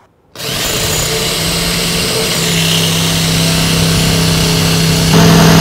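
Electric drill running steadily as a metal twist bit enlarges a pilot hole in the thin sheet steel of a Weber kettle's rotisserie ring. The motor starts about half a second in and gets louder near the end.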